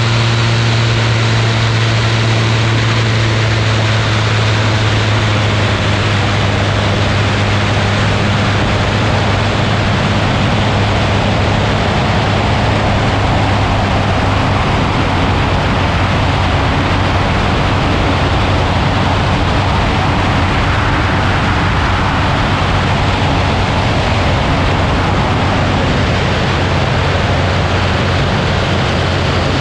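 Ultralight aircraft's engine and propeller running steadily, heard over heavy rushing air noise; the engine note drops slightly about five seconds in.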